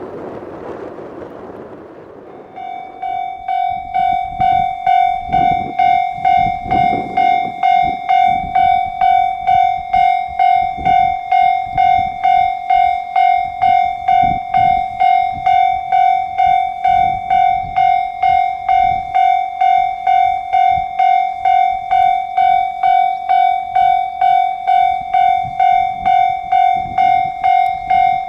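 Japanese railway level crossing's electronic warning bell starting about two and a half seconds in and ringing steadily at about two strokes a second, the signal that a train is approaching the crossing.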